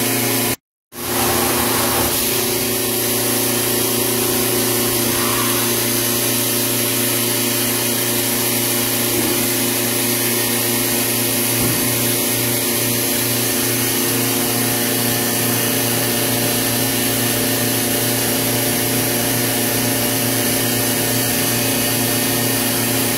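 Thermoforming (vacuum-forming) machine running in automatic mode: a steady mechanical hum and whir with several steady tones, briefly cutting out about a second in.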